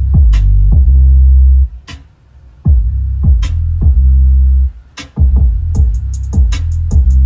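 Bass-heavy electronic music with a drum-machine beat: long deep bass notes that drop out briefly about two seconds in and again near five seconds, with fast hi-hat ticks coming in near the end.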